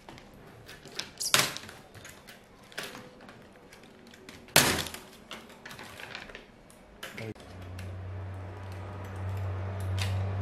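Plastic fittings snapping and sheet metal clicking as the metal keyboard plate of a Lenovo IdeaPad 3 is pried off its top case. Two loud sharp snaps come about one and a half and four and a half seconds in, among smaller clicks. A steady low hum starts about seven seconds in.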